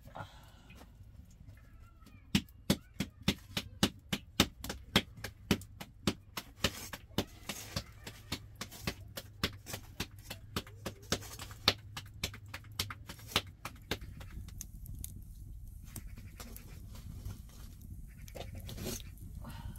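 Sharp metal clicks and taps, about three a second for some ten seconds, from a slotted skimmer and spatula knocking on a metal tray while fried bulani are moved onto it.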